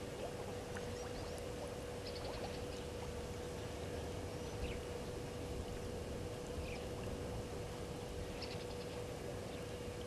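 Outdoor bush ambience at a waterhole: a steady hum over a soft background hiss, with two short, rapid trilling calls from a small animal, about two seconds in and again near the end.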